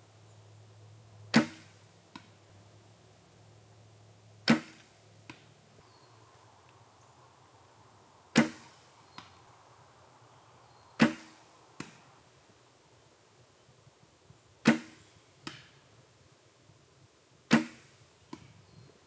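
Big Jim Buffalo longbow shot six times in a row. Each release gives a sharp slap of the string, and a fainter knock follows under a second later as the arrow strikes the target.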